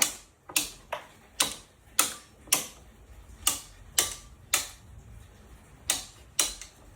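Circuit breakers in a home electrical panel being switched off one after another: about a dozen sharp snapping clicks at an uneven pace, with a short pause about five seconds in.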